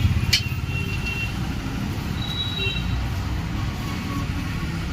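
Steady low rumble of road traffic, with a sharp click about a third of a second in.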